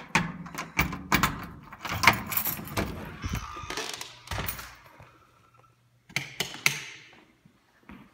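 Keys jangling and a door being unlocked and pushed open: a quick run of clicks, knocks and rattles, then a few more sharp knocks a couple of seconds later.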